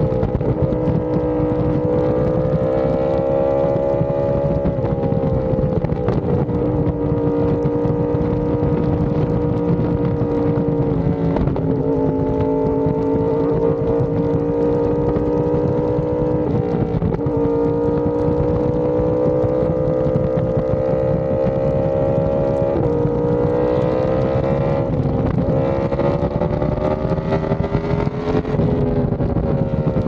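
Yamaha R1M's crossplane inline-four engine running through an SC Project exhaust while riding. It holds a steady pitch that creeps up slowly, with a brief dip every five or six seconds.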